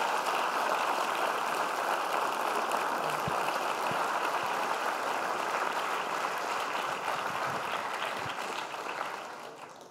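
Large auditorium audience applauding: steady dense clapping that dies away near the end.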